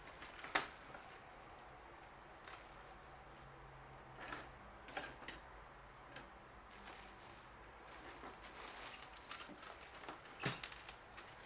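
Faint scattered clicks and taps of small plastic and metal parts being handled as a desoldering gun is taken apart. Near the end comes one sharp click, the loudest sound: a small part flying off and hitting an oscilloscope.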